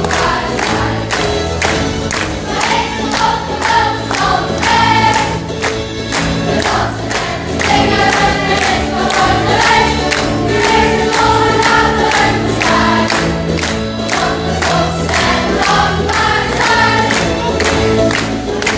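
A cast of children singing together in chorus over music with a steady beat.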